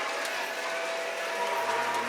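Lionel model trains running on a museum layout: a steady motor whine with mechanical clatter, and a second, higher whine coming in near the end.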